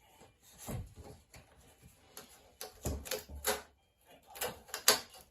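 Hand work on a workpiece: a handful of irregular knocks and short rubbing scrapes, the sharpest knock a little before the end.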